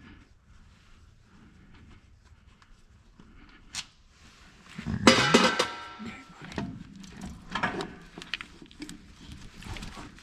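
Metal clanking as a tractor starter motor is worked loose and pulled from its housing: a sharp click about four seconds in, then a loud ringing clank about five seconds in, followed by several lighter knocks.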